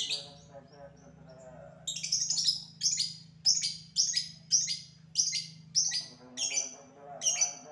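Caged lovebird ngekek-ing: a long run of loud, sharp, high calls at about two a second, starting about two seconds in after a single sharp call.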